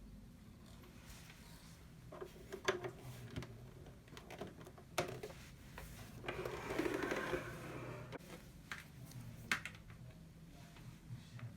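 Scattered clicks and knocks of a plastic sewing machine and its parts being handled, with a longer rustle about six to seven seconds in, over a faint steady low hum.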